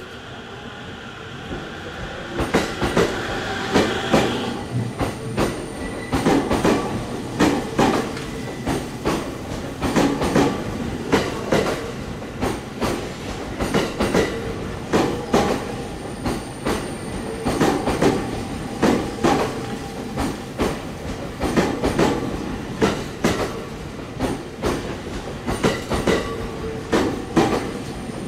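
Electric commuter train rolling past at low speed, its wheels clicking over the rail joints in regular clusters about every two seconds. The clicking grows louder over the first few seconds, then keeps an even pace.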